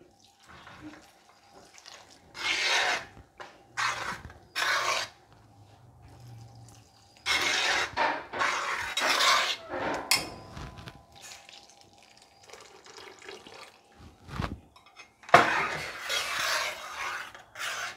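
A metal spoon scraping and stirring in a brass uruli of semiya and milk, in several separate bouts of scraping with pauses between. Milk is poured in from a glass jug as the payasam is stirred.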